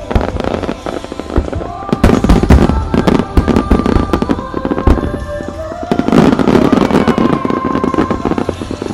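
Fireworks bursting in a dense barrage: a rapid string of sharp bangs, swelling into a thick crackling roar about six seconds in as a wide spread of gold shells breaks at once. Music plays underneath.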